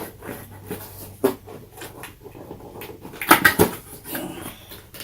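Plastic packaging of a boxed figure being handled and pulled at: scattered rustles and clicks, with a louder burst of crackling about three and a half seconds in.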